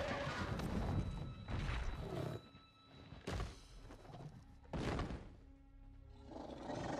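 Film soundtrack with quiet music and the low growls of Drogon, a dragon, coming in several separate swells with quieter gaps between them.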